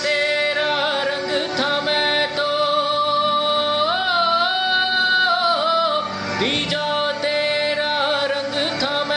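Man singing a Hindi film song cover in long, drawn-out notes without clear words. The pitch wavers on each held note, rises about four seconds in and falls back a second or so later.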